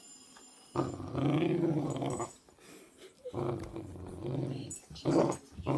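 Dog growling as it tugs at a trouser leg in play: three growls, the first and longest starting about a second in, the last short and loud near the end.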